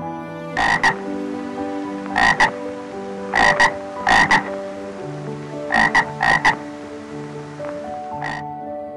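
A frog croaking in short double calls, two quick croaks each time, repeated about six times with pauses between and a single call near the end, over soft piano music.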